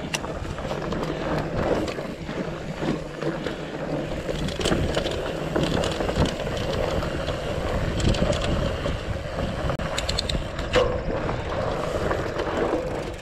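Mountain bike rolling over a rocky dirt singletrack: steady tyre noise on dirt and rock, with frequent short knocks and rattles as the bike goes over the bumps.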